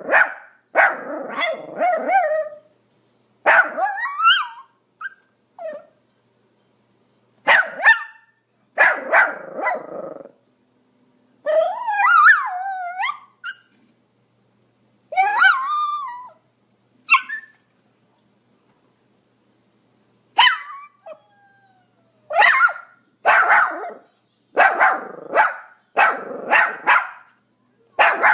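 Pomeranian barking in short bursts of sharp, high barks, with silent pauses between the bursts. A few calls near the middle are drawn out and slide up and down in pitch, and near the end the barks come evenly, about one a second.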